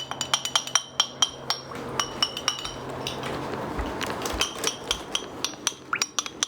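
A utensil stirring a thick dip in a bowl, clinking rapidly against the bowl's sides at about four knocks a second. About three seconds in, the clinks give way briefly to scraping, then resume.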